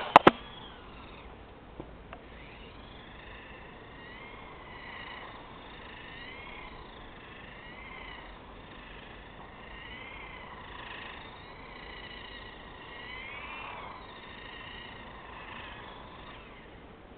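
Remote-controlled car's electric motor whining, its pitch wavering up and down as it speeds up and slows. There are a couple of sharp knocks at the very start.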